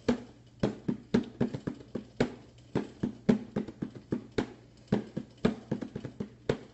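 Hand drums struck with bare hands in a loose, uneven beat, two to three hits a second with some quick double strokes.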